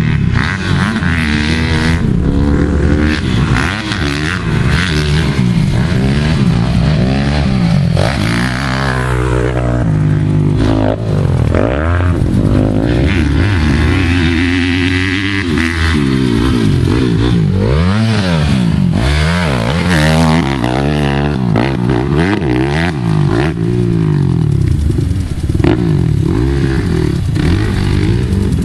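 Motocross dirt bike engines revving up and down as the bikes ride the track. The pitch keeps rising and falling, with more than one engine overlapping.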